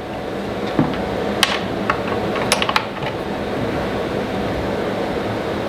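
Chainsaw combination socket tool (scrench) tightening the bar nut on a Husqvarna 445e's side cover: a few light metallic clicks and taps, mostly in the first half, over a steady background hum.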